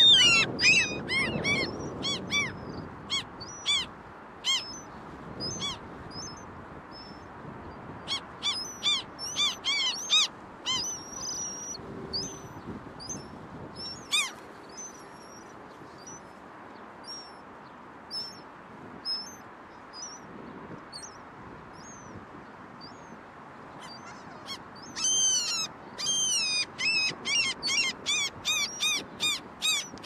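Gulls calling: bouts of short, high-pitched cries, with a fast run of calls near the end.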